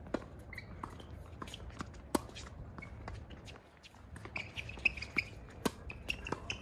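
Tennis rally on a hard court: sharp pops of rackets striking the ball and the ball bouncing, several times, the loudest about two seconds in. Short squeaks and scuffs of tennis shoes on the court come as the player runs, about two thirds of the way through.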